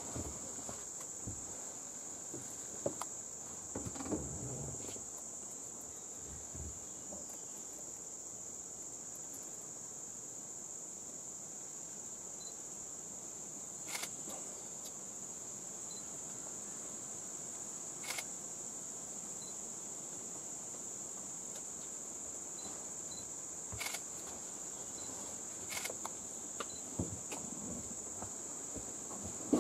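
Steady, high-pitched, unbroken trill of insects. A few short sharp clicks come every several seconds.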